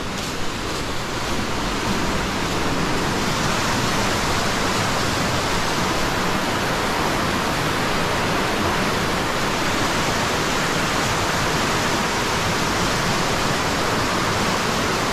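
Muddy floodwater rushing fast down a swollen creek: a steady, dense rush of water that grows a little louder about two seconds in.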